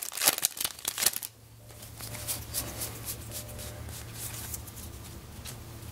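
Foil Magic: The Gathering booster pack wrapper crinkling as it is pulled open and the cards come out, loud for about the first second. Then a softer rustle of the cards being fanned and flipped through by hand, over a faint low hum.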